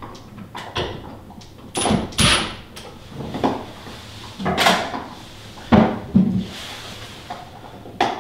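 Tools being handled against a wall-mounted wooden rack: a cordless drill put away and a long spirit level picked up and set against the board, giving a handful of irregular knocks and clunks.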